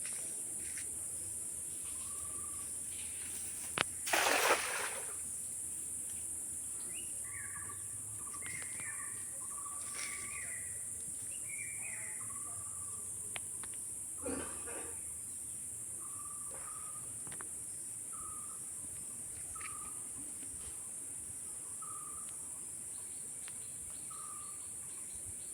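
Pond-side countryside ambience: a steady high insect drone with short, repeated bird chirps. Two brief noisy rushes stand out, the louder one about four seconds in and another about fourteen seconds in.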